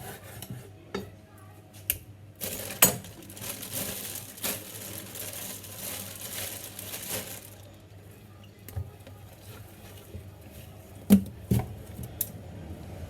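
Kitchen handling sounds: scattered knocks and clinks of utensils or dishes, with about five seconds of steady hiss from about two seconds in, and two sharper knocks near the end.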